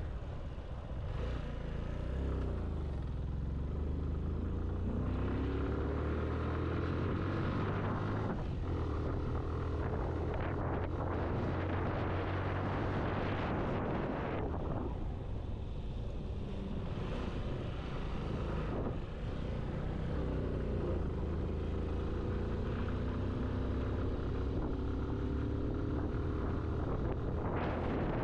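Motorcycle engine running under way, its pitch rising twice as the bike accelerates up through the gears. Wind rushes over the microphone in between.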